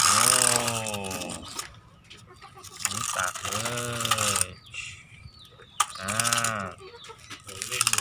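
A man's voice making drawn-out engine noises ('brrm', 'vroom'), each rising and falling in pitch, several times over. There is a sharp click about six seconds in.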